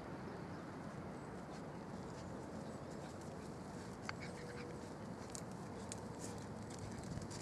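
Quiet outdoor background noise, a steady low rumble, with a faint click about four seconds in and a few faint, short high chirps between five and six seconds in.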